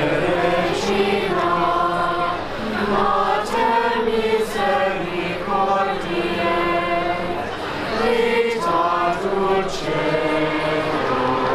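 A group of young people singing together, voices holding notes in a slow, chant-like line.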